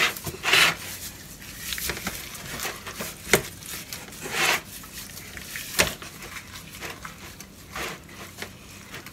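Gloved hands rubbing seasoning into a raw pig head in a disposable aluminium foil pan: irregular rubbing and handling strokes, with crinkles and a few sharp clicks from the foil pan.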